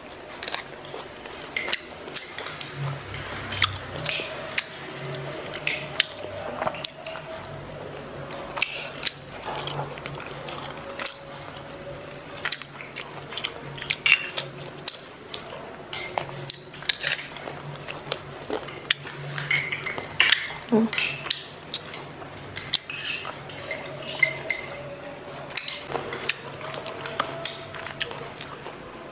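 Metal spoons clinking and scraping against small ceramic bowls as people eat, in many short, irregular clinks throughout.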